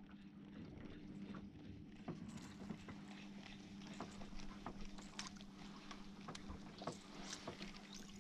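Small boat moving slowly over calm water: a faint steady low hum runs throughout, with light water lapping and scattered small ticks against the hull.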